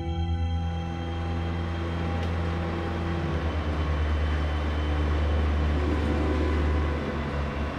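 A steady low drone with a few held low tones, under a swelling wash of street traffic noise. The drone cuts off about seven seconds in, leaving the traffic.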